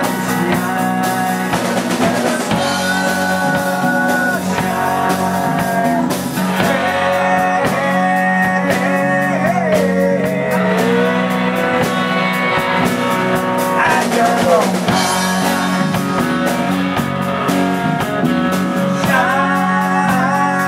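Live rock band playing: electric and acoustic guitars over a drum kit, with two men singing.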